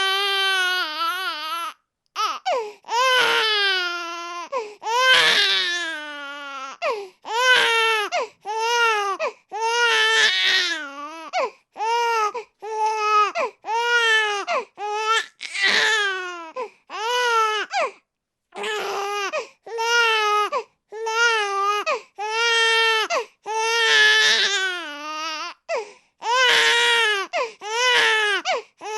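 Baby crying in repeated wails, roughly one cry a second with short gaps for breath. Each cry has a wavering pitch, and a few longer ones early on slide downward.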